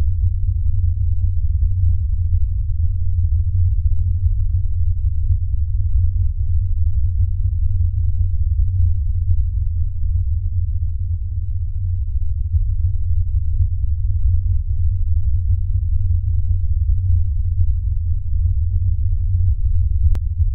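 Steady, deep bass drone with nothing in the higher range, holding unchanged throughout; a faint click near the end.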